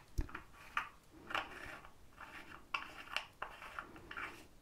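Fingers handling a small white item close to the microphone: a run of crisp, irregular rustling and scratching sounds about every half second, with a low knock just after the start.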